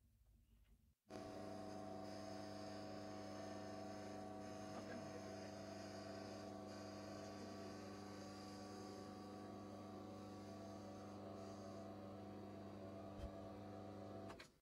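Mini lathe running with a steady motor-and-gear hum while a boring bar cuts out the bore of a part to size for a press fit. The hum starts suddenly about a second in and stops just before the end.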